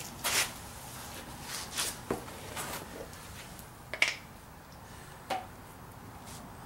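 A few short rustles and light knocks of someone moving and handling things, with one sharper click about four seconds in as a jar of bearing grease is set down on the concrete floor.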